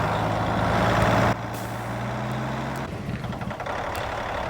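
Compressed air hissing loudly from a semi truck's air system, cutting off suddenly about a second in, over the truck's diesel engine idling.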